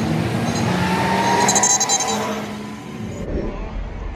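Street traffic: cars and a bus driving past with engines running, one engine rising in pitch as it speeds up. About three seconds in the sound changes abruptly to a duller low rumble.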